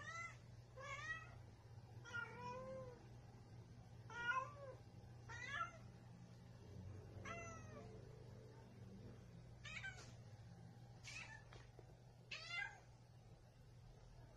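Female domestic cat in heat calling: about nine short meows, one every one to two seconds, each bending in pitch. This is estrus calling, the in-heat cat calling for a male.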